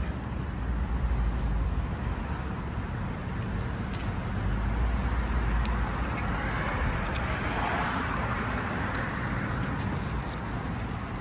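Steady low rumble of background road traffic, swelling for a few seconds about six seconds in, with a few faint clicks.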